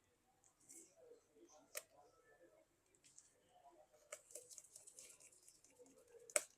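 Faint, scattered clicks and light taps of small screws and a hand tool on a smartphone's internal frame while the screws are set in place, with one sharp click a little under two seconds in and a louder click near the end.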